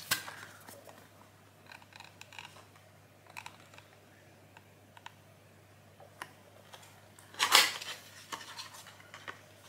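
Small cardboard product box being handled: scattered light clicks and scratches of fingers on card, with a short, louder scrape about seven and a half seconds in.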